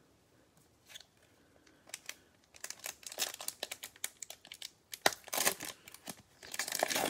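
Foil wrapper of a Panini Mosaic football cello pack crinkling and tearing as it is ripped open by hand, in crackly bursts starting a couple of seconds in.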